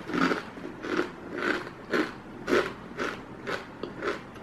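Someone chewing a mouthful of crunchy Mamee Monster dried fried-noodle snack, with a dry crunch about twice a second.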